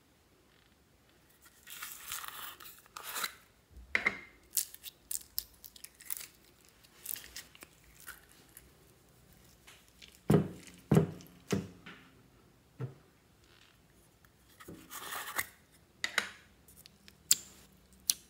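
Plastic craft jars of foam and pearl beads being handled and emptied by hand: rustling and crackling with scattered clicks, and three sharp knocks a little past the middle.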